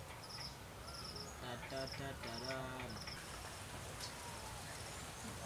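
Faint insect chirping: short, high chirps repeating every half second or so. A brief voice is heard about two seconds in.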